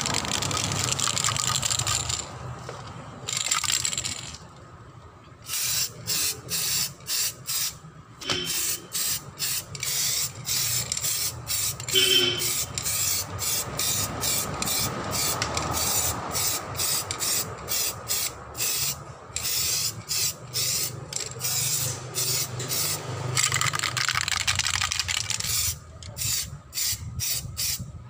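Samurai aerosol spray-paint can spraying primer in many short hissing bursts, roughly one or two a second, with brief pauses between them.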